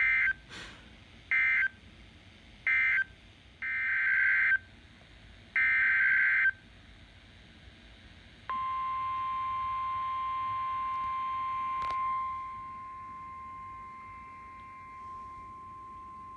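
Emergency Alert System SAME data bursts, the shrill warbling digital tones: three short bursts, the end-of-message code, then two longer header bursts. After them, from about halfway in, comes the steady 1050 Hz NOAA Weather Radio warning alarm tone, one long continuous beep that drops somewhat in level partway through.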